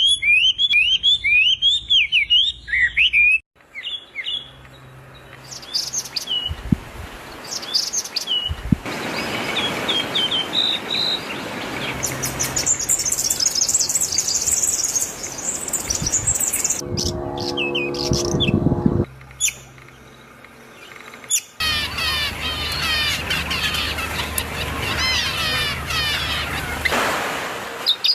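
Several songbird recordings cut together, with birds chirping and singing in quick, high notes. The mix changes abruptly from one clip to the next, and the last third is a dense chorus of many birds chirping at once. A louder, harsher call comes about two thirds of the way through.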